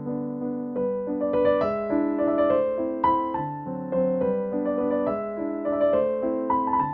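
Background music: a gentle piano melody with chords, notes struck and left to fade.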